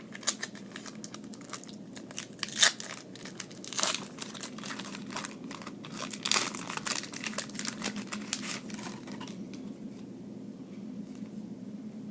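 Trading-card pack wrapper crinkling and tearing as a pack of 2011 Upper Deck College Legends cards is ripped open: a dense run of crackles, loudest about two and a half seconds in, dying down after about nine seconds.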